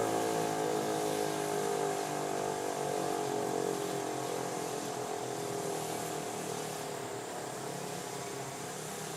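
Federal Signal Equinox electromechanical warning siren winding down at the end of its Full Alert test: its tone slowly falls in pitch and fades away.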